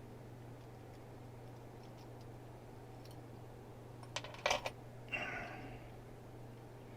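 A quick cluster of small metallic clicks about four seconds in, then a brief metallic clink that rings for about half a second, from the brass padlock and lock picks being handled.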